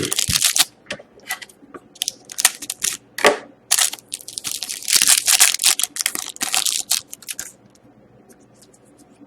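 Crinkling and crackling of a trading-card pack's foil wrapper and card packaging handled by hand, in quick bursts that die away about seven and a half seconds in.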